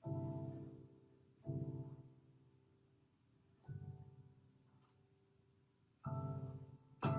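Slow solo piano improvisation: five chords struck one at a time with pauses between, each left to ring and fade.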